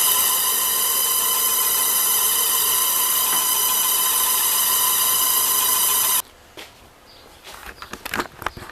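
Old Delta Rockwell drill press running with a loud, steady, high-pitched whine that has many overtones; the whine is an unexplained noise on the first start-up after rewiring. It cuts off suddenly about six seconds in, followed by a few light clicks and knocks.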